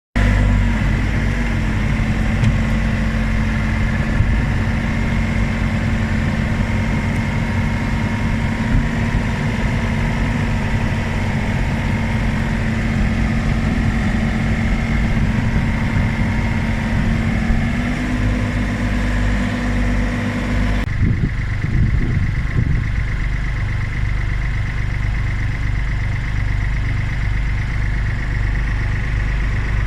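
Diesel engine of a compact construction machine running steadily. The engine note steps a little past halfway, and the sound changes abruptly about two-thirds through.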